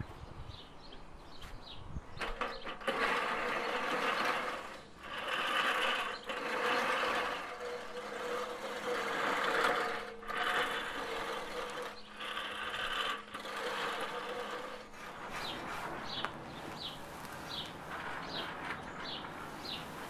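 Lawn mower pushed across grass, cutting in spells from about three seconds in until about fifteen seconds, with short breaks in between. Birds chirp before and after it.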